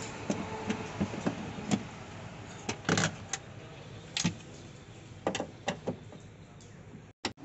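Irregular metallic clinks and knocks of hand tools against car bodywork, about a dozen sharp strikes, the loudest about three and four seconds in.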